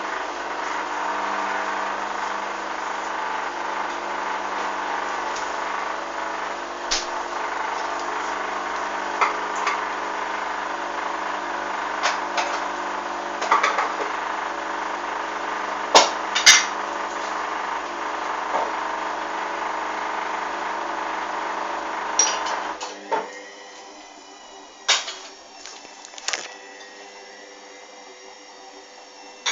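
Hoover washing machine running, a steady motor hum with several tones and scattered sharp knocks from the drum and its load. About two-thirds of the way through the running drops to a much quieter hum, still with the occasional knock.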